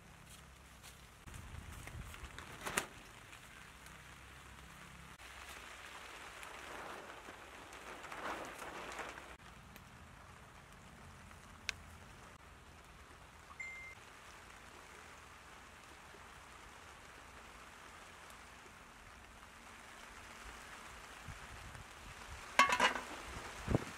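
A steady bubbling hiss from a pot of water boiling over a wood fire, with a few light knocks. Near the end an aluminium pot lid clatters against the pot several times with a metallic ring, the loudest sound.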